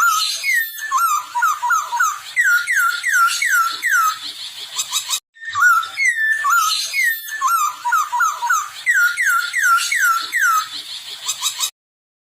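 A poksay hongkong laughingthrush in breeding condition singing a rapid series of clear, downward-slurring whistles, about two a second, with higher twittering notes over them. The song breaks off briefly about five seconds in, resumes, and stops shortly before the end.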